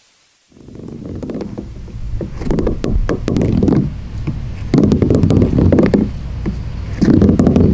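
Footsteps crunching over loose playground gravel or mulch, with sharp crunches scattered through. Heavy low rumbles swell for about a second, roughly every two seconds. It starts abruptly about half a second in.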